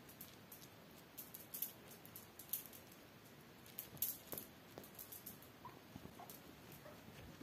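A kitten's claws and paws scrabbling and patting on a satin bedcover: faint, irregular light clicks and scratchy rustles, the sharpest about four seconds in.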